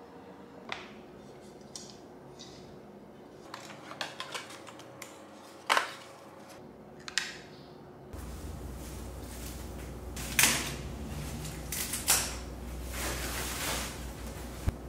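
Handling sounds of unpacking a monitor's accessories: scattered light clicks and taps of plastic parts and a cable on a desk, with one sharper knock. In the second half, plastic wrap rustles and crinkles as it is pulled off the monitor, ending in a sharp click.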